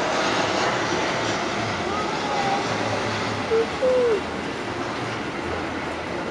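Passenger railway carriages rolling slowly past during shunting, a steady rumbling rush of wheels on rail. Two or three short squeals stand out about three and a half to four seconds in.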